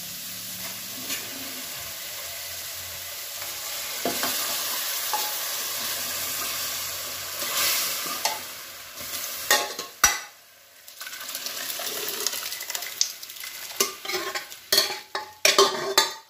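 Onion-tomato masala sizzling in a metal kadhai, louder for a few seconds about four seconds in, then dying away. From about halfway on, a spoon clinks, knocks and scrapes against metal pots.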